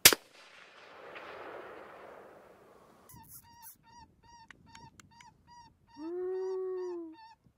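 A single gunshot at the very start, its boom rolling away over about three seconds before it breaks off suddenly. Then a run of short, evenly spaced high squeaks, two to three a second, and about six seconds in one long, steady-pitched wailing call lasting about a second.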